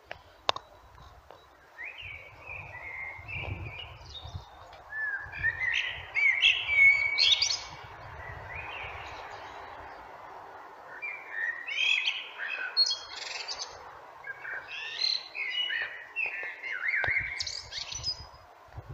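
Common blackbird singing: about five separate warbled phrases with short pauses between them, each ending in higher, thinner twittering notes.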